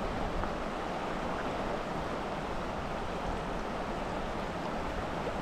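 Shallow river running fast over stones, a steady rushing of water.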